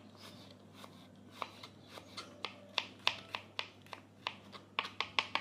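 Kitchen knife slicing peeled garlic cloves on a plastic cutting board: a run of light taps as the blade meets the board, about three a second, coming quicker near the end.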